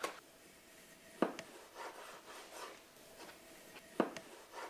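Chef's knife chopping mint and tomatoes on a plastic cutting board: a sharp knock of the blade hitting the board about a second in and another near the end, with fainter chopping taps between.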